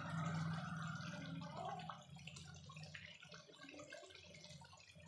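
Masala gravy simmering in a metal kadhai on a gas flame, with faint bubbling and small pops. A low hum fades out about two seconds in.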